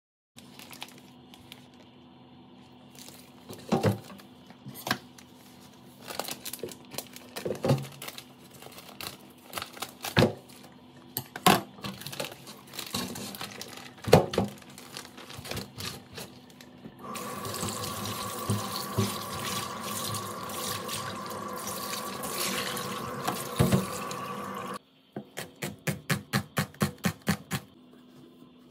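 Raw mutton being washed by hand in a plastic bowl in a stainless-steel sink: knocks and splashes of meat and water. A kitchen tap then runs steadily for about eight seconds. Near the end comes a rapid run of even clicks, about five a second, typical of a gas stove's igniter.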